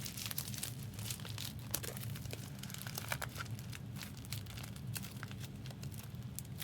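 Foil trading-card pack wrappers crinkling, with many short, sharp crackles as packs are handled and opened, over a steady low hum.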